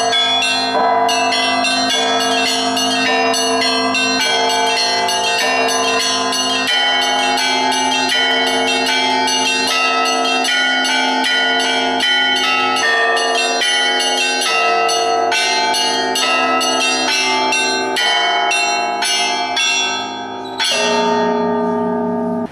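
Russian Orthodox belfry bells rung in the Polesye chime: quick, dense strikes of the small bells over the ringing of larger ones. About 20 s in the ringing briefly drops away, then a last full strike with the lower bells rings out and fades.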